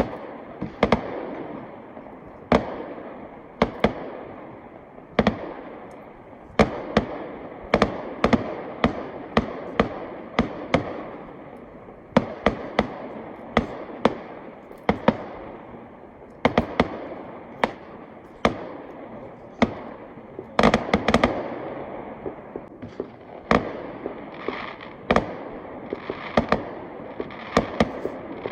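New Year fireworks going off in quick, irregular succession: dozens of sharp bangs, each trailing off as it fades, with a thicker cluster of bursts about three quarters of the way through.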